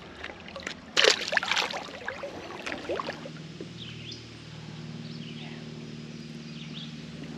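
A short splash and slosh of water about a second in, as a small smallmouth bass is let go back into the creek. A steady low hum follows from about three seconds in, with a few faint high chirps over it.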